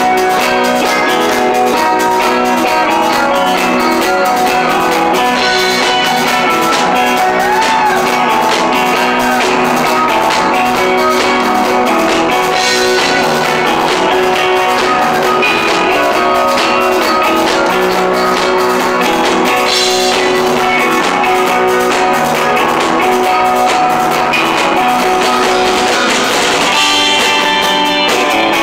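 Live rock band playing a song: several electric guitars, one of them a bass, ring out over a drum kit at a steady, loud level.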